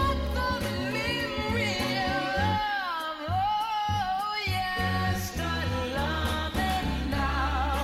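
Background music: a song with a wavering, gliding melody, sung, over a steady low bass accompaniment.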